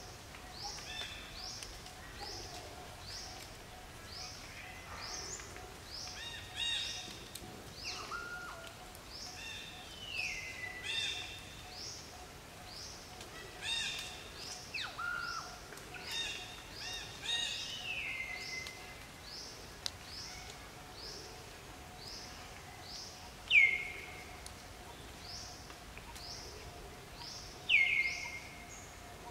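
Birds calling: short high chirps repeat about once or twice a second, mixed with other chirping calls and a faint steady hum. Two loud, clear calls falling in pitch come near the end.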